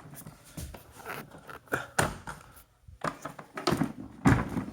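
Scattered knocks and clicks of plastic Hetty vacuum cleaner parts being handled and fitted together, with a louder knock near the end.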